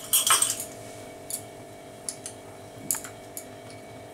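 A spoon clinking against a small container as salt is added to water heating in a wok: a quick cluster of clinks, then a few single taps. A steady low hum runs underneath.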